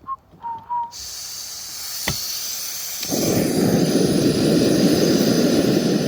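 Portable fold-out gas camping stove being lit: gas hisses from the burner from about a second in, an igniter clicks once at about two seconds, and about a second later the burner catches and burns with a loud, steady rush of flame under the kettle.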